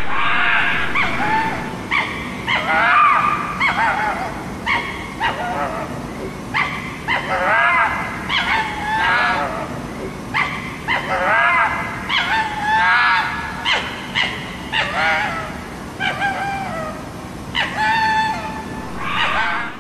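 Red fox barking at night: a long series of short yelping barks, each rising and falling in pitch, coming in bouts with brief gaps between them.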